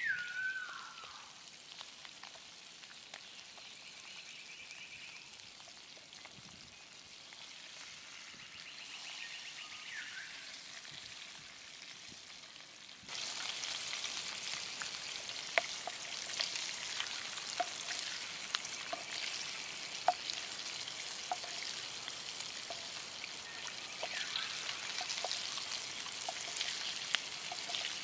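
Beef steak sizzling in hot fat with garlic cloves in a small frying pan on a portable gas stove. About halfway through the sizzle suddenly gets much louder and crackles steadily. A short falling whistle is heard at the very start.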